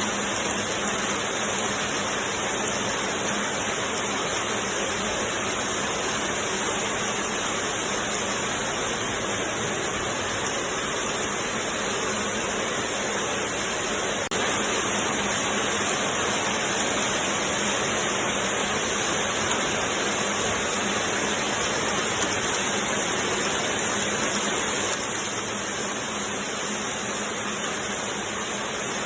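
10-gauge Qiang Sheng automatic glove knitting machine running continuously, a steady dense mechanical hiss and clatter, slightly louder from about halfway through.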